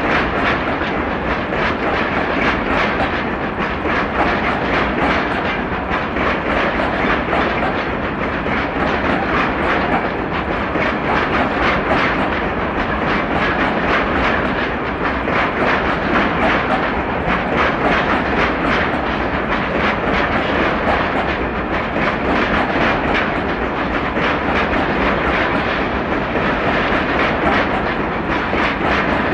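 Loaded freight wagons rolling past steadily: Eas open wagons carrying coal fines, with a continuous rumble of wheels on rail and a dense run of clicks as the wheels cross rail joints.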